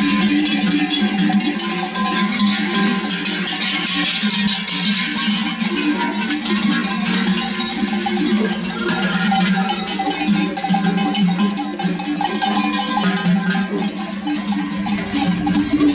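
Bells worn by a walking flock of sheep and goats, clanking and ringing continuously and out of step with one another.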